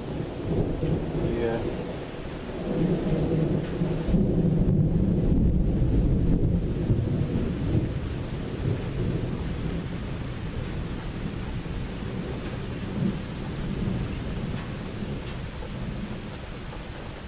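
A long roll of thunder over steady rain: the rumble swells a few seconds in, is loudest around five to seven seconds, then slowly dies away while the rain keeps falling.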